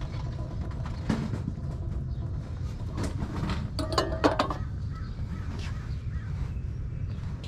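Goods being handled on a yard-sale table: a few short knocks and clatters as items are picked up and set down, about one, three and four seconds in, over a steady low rumble. The sound about four seconds in is short and pitched.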